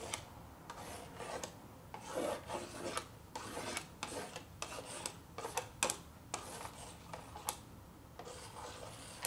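Plastic stylus scratching across the screen of a children's magnetic drawing board in short, irregular strokes with brief pauses.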